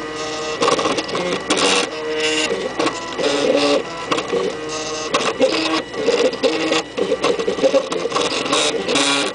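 Stepper motors of a MakerBot-kit 3D printer whining as the print head and platform move while printing, the pitch jumping from one steady tone to another with each change of move and short stops between. A faint steady high tone runs underneath.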